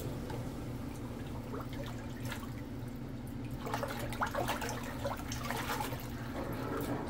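Water sloshing and splashing in a full stainless steel sink as a hand stirs it by the open drain and it starts to empty, over a steady low hum.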